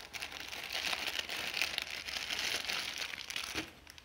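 Plastic wrapper of a multipack of instant noodles crinkling and rustling steadily for about three seconds as the pack is opened and a single packet is pulled out.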